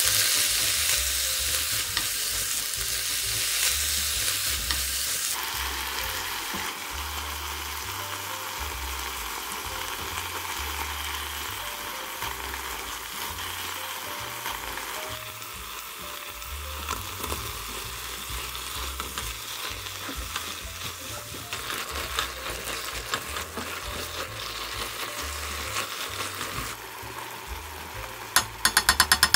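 Tomato wedges, cabbage and chicken breast sizzling in a hot frying pan while a spatula stirs them. The sizzle is loudest at first and slowly dies down, and a quick run of sharp clicks comes near the end.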